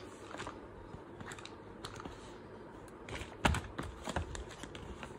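Small cardboard product boxes and accessories being handled and set down: scattered light clicks and taps, with a cluster of louder knocks about three and a half seconds in.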